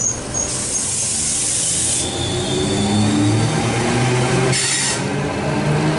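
Tangara electric train pulling away from the platform. A hiss comes about half a second in, then the low hum of its traction equipment rises in pitch in steps as it accelerates, with a second short hiss near the end.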